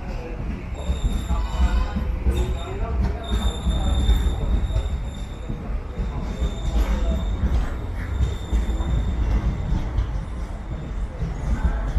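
Passenger train rolling on the rails with a steady low rumble and high-pitched wheel squeal that comes and goes.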